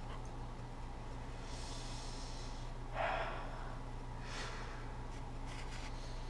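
A man breathing sharply in and out through his nose a few times, the loudest breath about three seconds in, over a steady low hum.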